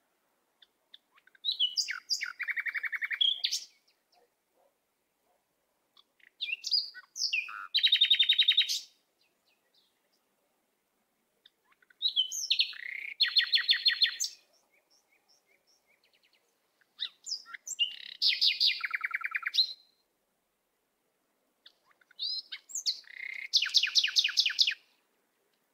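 A songbird singing the same short song five times, about every five seconds. Each song is a few quick sweeping notes followed by a fast, high trill.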